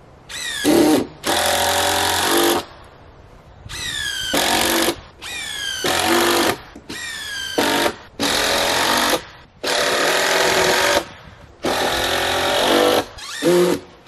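Power impact driver driving fasteners into a wooden beam in repeated bursts of about a second each, several opening with a falling whine before the steady rattle of the hammering.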